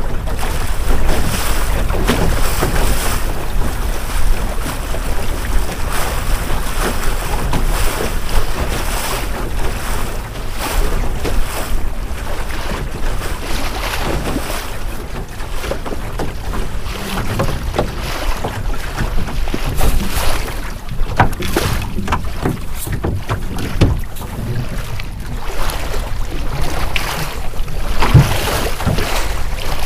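Wind buffeting the microphone over the rush of choppy water along the hull of a small wooden sailing skiff (a Melonseed skiff) underway. Waves slap and splash against the bow now and then, the loudest slap near the end.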